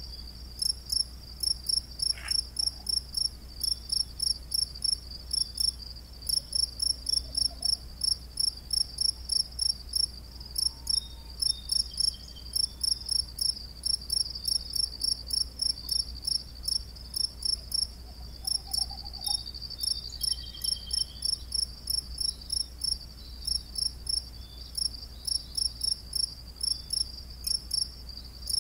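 A cricket chirping steadily in a regular, high-pitched pulse of about three chirps a second.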